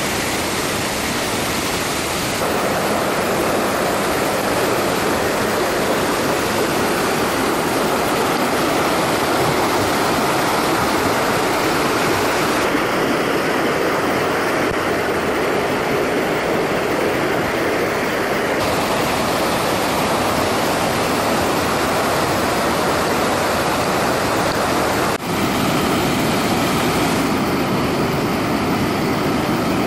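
Small creek swollen into a flood after torrential rain, muddy whitewater rushing over rocks and through rapids in a loud, steady wash of noise, with one brief dropout near the end.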